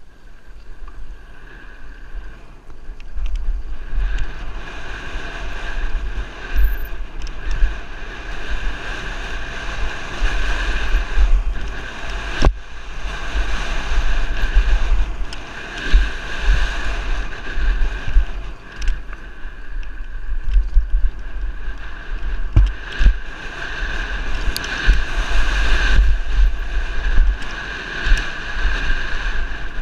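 Wind rumbling over a helmet-mounted camera's microphone as a downhill mountain bike runs a rough dirt trail, with a steady high whir and sharp knocks and rattles from the bike over bumps, the loudest knock about twelve seconds in.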